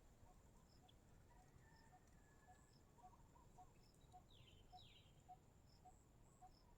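Near silence: faint rural outdoor ambience of insects and birds. A steady high insect trill runs under soft, regular chirps about twice a second, with a pair of quick downward-sweeping bird calls about four seconds in.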